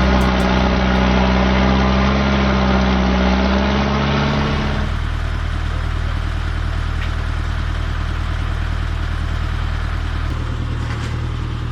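A heavy machine's engine running steadily, then about five seconds in it cuts to a different engine idling with a low, even throb.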